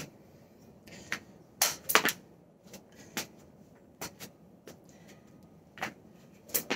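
A plastic jump rope slapping the floor and its handles clicking in irregular strikes as it is handled and swung, with the loudest slaps about two seconds in. There is no steady skipping rhythm yet.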